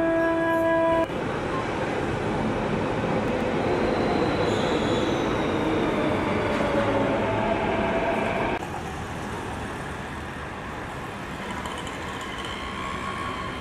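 A flute note ends about a second in, then a metro train runs with a steady rush of wheel and track noise and faint squealing tones. About eight and a half seconds in, this cuts abruptly to a quieter steady background noise.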